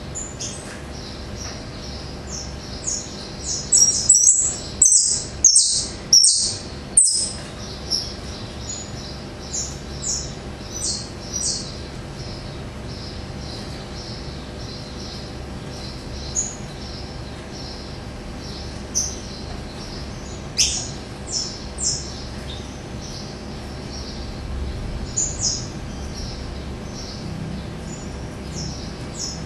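Caged songbird singing in short bursts of high, sharp notes. The song is loudest and densest about four to seven seconds in, then breaks into scattered phrases with pauses between them.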